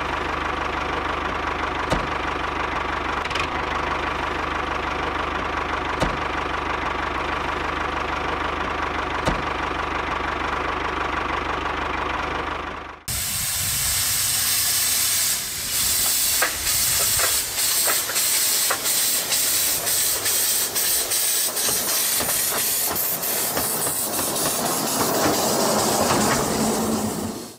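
Small electric motor of a homemade miniature tractor running with a steady hum and whine and an occasional click. About halfway through, it cuts to a homemade miniature locomotive running on its track, a noisier hiss with many small rapid ticks.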